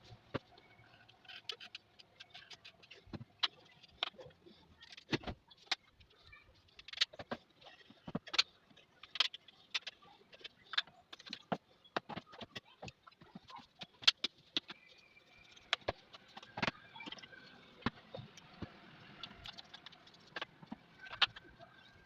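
Irregular clicks, taps and clinks of small metal parts and tools being handled on a sewing machine while it is cleaned and serviced.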